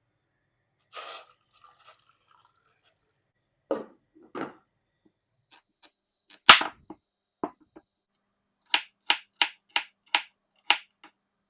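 Scattered sharp clicks and taps in a small room, the loudest a single crack about halfway through, then a quick run of six even taps, about three a second, near the end.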